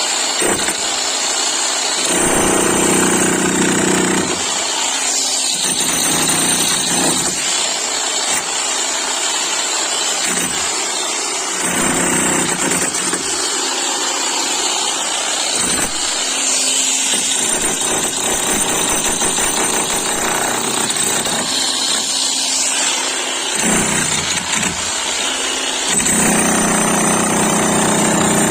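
An 11 kg demolition hammer running continuously, with a low note that drops in and out every few seconds as the load shifts.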